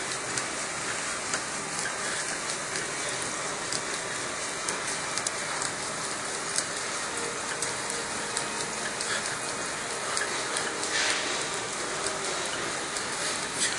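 Life Fitness upright exercise bike pedalled fast at about 125–130 rpm against resistance level 7, its drive giving a steady, even hiss-like whir.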